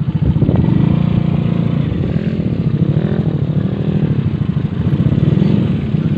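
Small Honda single-cylinder motorcycle engine in a homemade minivan, revving under load as the van climbs a dirt track; the engine note rises and falls several times.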